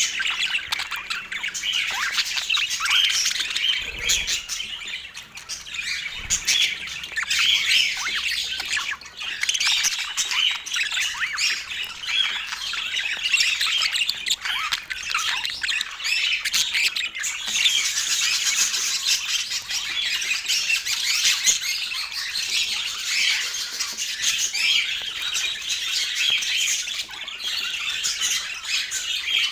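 Budgerigars chattering without pause, a dense stream of quick, high chirps.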